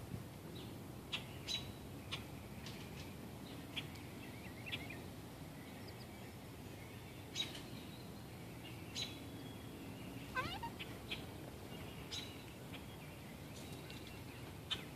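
Wild birds chirping intermittently: short high chirps every second or two, with one longer call that slides down in pitch about ten seconds in.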